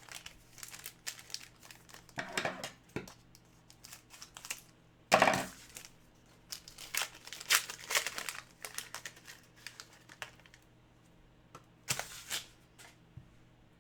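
Trading-card pack wrappers crinkling and tearing as packs are opened and cards handled, in irregular bursts, the loudest about five seconds in.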